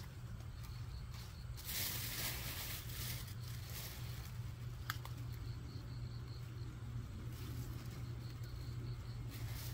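Leaves rustling as young radish seedlings are pulled and handled during thinning, with the loudest burst of rustling about two seconds in and a single sharp click near the middle. A steady low hum runs underneath.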